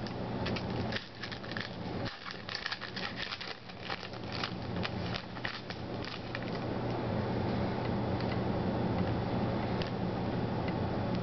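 Shiny foil trading-card pack wrapper crinkling and crackling as it is torn open and handled, a rapid run of crackles through the first half. Under it and afterward there is a steady low hum.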